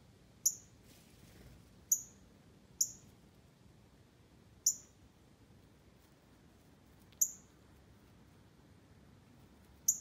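A small animal giving sharp, very high chip calls, six in all at uneven intervals, each one brief with a quick falling tail.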